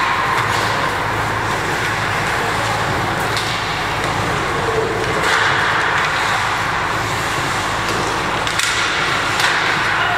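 Ice hockey rink during play: a steady hum and rushing noise with skates scraping the ice, broken by a few sharp knocks, two of them close together near the end.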